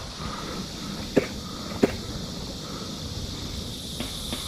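A steady outdoor hiss with two sharp snaps, about a second and two seconds in.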